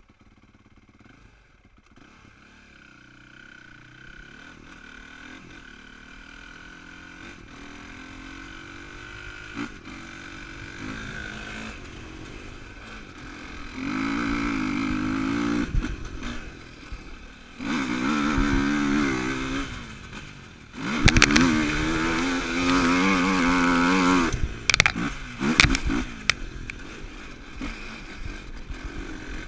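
Yamaha YFZ450R sport quad's single-cylinder four-stroke engine, heard from on board: faint at first and slowly building, then from about halfway through it revs hard in three bursts of acceleration with easing-off between them. Near the end come several sharp knocks and rattles as the quad hits bumps.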